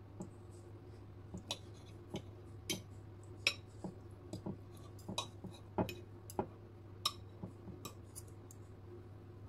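Metal knife and fork cutting a soft baked zucchini slice on a plate, the cutlery clicking and tapping against the plate in a series of light, irregular clicks.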